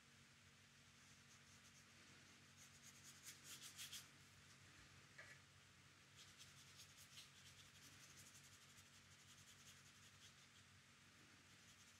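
Faint scratchy strokes of a watercolour paintbrush on textured paper. The strokes come in two runs of quick short dabs a few seconds apart, over a low steady hum.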